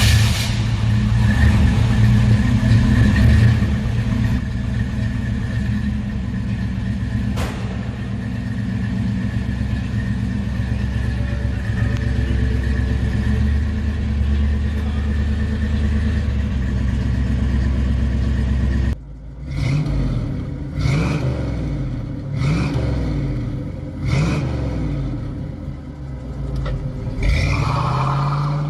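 1969 Ford Mustang's engine and exhaust running at a steady idle for most of the time. After an abrupt cut, it is revved in a series of about six quick blips, each rising and falling in pitch.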